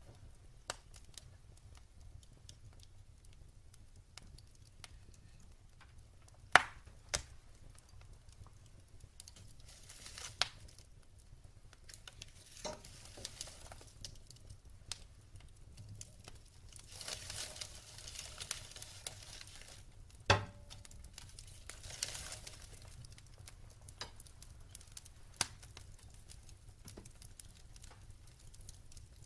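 Wood fire burning in a fireplace: scattered sharp crackles and pops, two louder snaps about a third of the way in and about two-thirds in, with short stretches of hissing.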